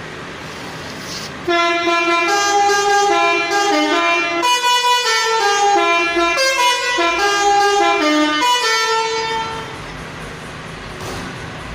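Indonesian 'telolet' bus horn playing a stepped multi-note melody. It starts suddenly about a second and a half in, runs for about eight seconds, and fades out, over a steady low hum.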